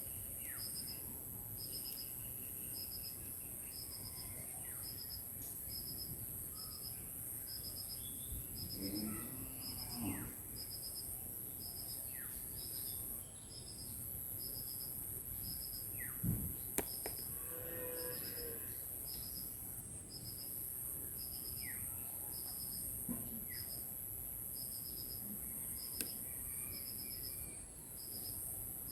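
Village insects buzz steadily at a high pitch, with a cricket-like chirp repeating about once a second. Scattered short bird calls break in, and about halfway through comes a longer low call that sounds like a cow lowing.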